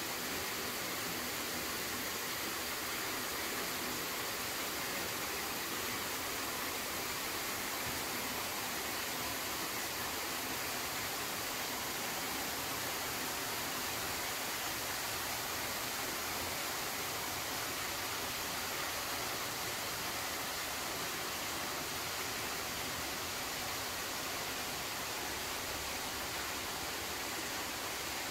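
A steady, even hiss with no distinct events, like rushing water or constant background noise.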